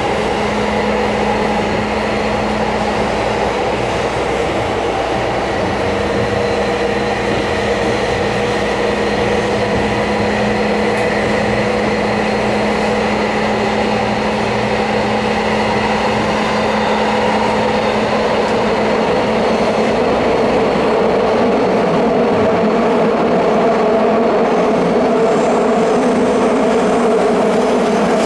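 Running noise inside a Tokyo Metro Tozai Line 07 series subway car (car 7, fitted with a Mitsubishi PMSM-type VVVF drive) travelling through the tunnel between stations. A steady rumble of the train under way carries a low, steady hum that fades out about two-thirds of the way through.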